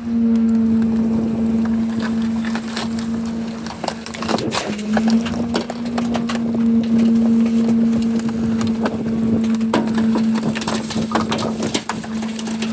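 Rear-loader garbage truck's compactor crushing a microwave: a steady hydraulic hum under many sharp cracks and snaps as the casing gives way.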